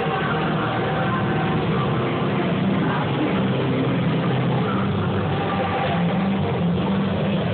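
Muffled arena din coming through the backstage walls: a steady, loud rumble with no breaks.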